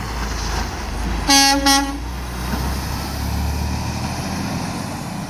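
Freightliner Cascadia semi truck's horn giving two short toots in quick succession about a second in, both on the same pitch.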